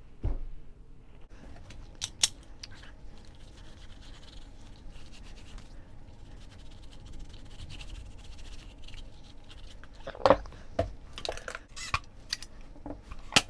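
Gun-cleaning gear being handled on a tabletop: faint rustling with a few soft clicks, then several sharper knocks and clatters from about ten seconds in as a black hard-shell gun case is opened.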